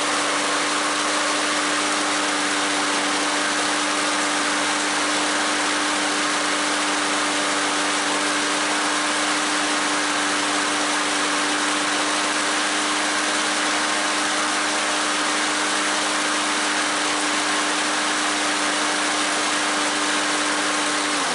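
Briggs & Stratton 6.75 auto-choke lawn mower engine running steadily at a constant speed after starting on the first pull: its new carburetor throttle shaft and replaced choke spring have it running right.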